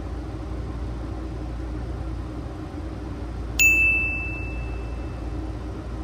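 Steady low drone of airflow and engines in a Boeing 737-800 cockpit on approach. About three and a half seconds in, a single bright bell ding rings out and fades over about a second and a half, the sound effect of an on-screen subscribe pop-up.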